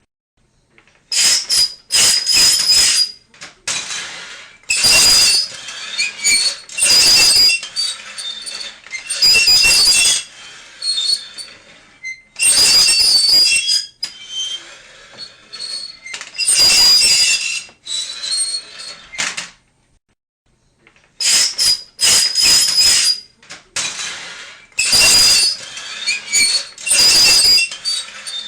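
Repeated harsh, high-pitched squealing scrapes, each lasting about a second, with short pauses between them.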